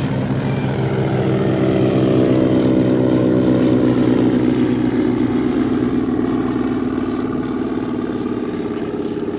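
Propeller aircraft's piston engine droning as it passes, apparently a tow plane pulling a glider. The sound swells, peaks a few seconds in, then fades, with its pitch sliding gently down as it goes by.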